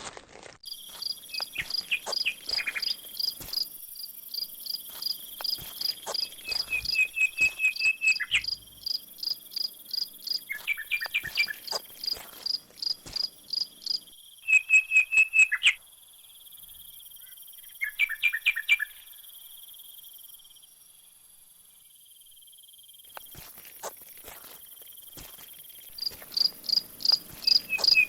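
Crickets and other insects chirping: several overlapping callers repeat rapid, evenly spaced high chirps over a faint steady high whine. The chirping drops away for a few seconds past the middle, then comes back strongly near the end.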